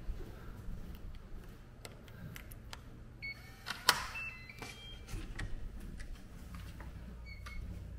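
Electronic key-card door lock: a short beep as the card is held to the reader, a sharp click, then a quick run of three or four electronic tones as it unlocks. Clicks of the lever handle being worked follow, with one more short beep near the end.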